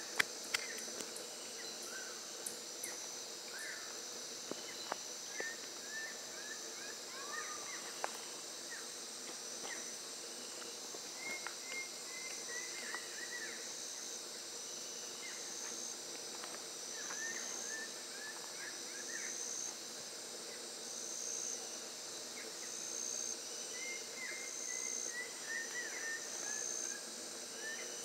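Amazon rainforest ambience: a steady high-pitched insect drone, joined in the second half by a pulsing insect note. Many short chirps from birds are scattered throughout, and there are a few faint clicks in the first eight seconds.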